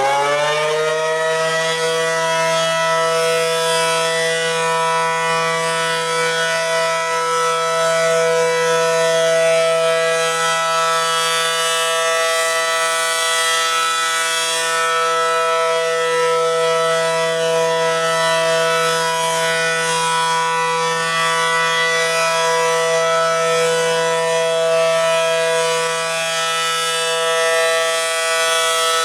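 ACA Allertor 125 outdoor warning siren sounding for a test. It finishes winding up in the first second, then holds a loud, steady wail.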